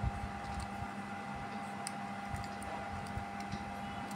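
Faint clicks and handling sounds of a smartwatch and its charging cable being handled, over a steady low hum.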